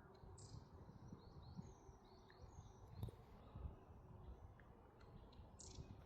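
Faint songbird calls: short high chirps and a few downward-sweeping notes scattered through, over low rumbling outdoor noise with a couple of soft low thumps around the middle.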